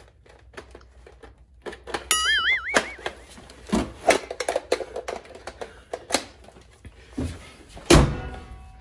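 Plastic Nerf blasters being handled and knocked about in a car's engine bay: a run of clicks and knocks, with a brief wavering tone about two seconds in. Near the end the car's hood is pulled down and shut with a single loud thump.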